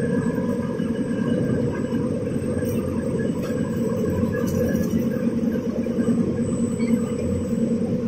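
Snack-making machinery running in a factory: a steady, dense mechanical rumble with faint steady hums above it, unchanging throughout.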